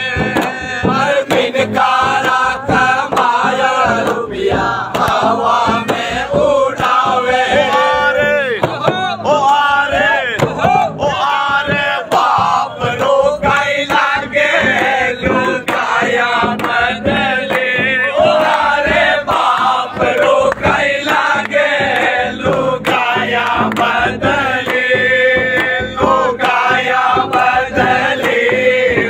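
Group of men singing a Holi dhamal folk song in loud chorus, with large frame drums (chang) struck to a steady beat.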